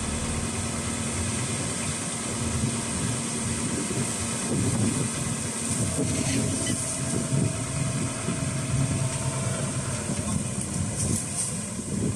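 Hitachi ZX200-3 excavator's four-cylinder diesel engine running steadily, with a thin high whine throughout.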